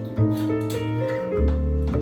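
Upright double bass played pizzicato, a few plucked notes that step down to a deep one near the end, with chords from other instruments sounding along with it.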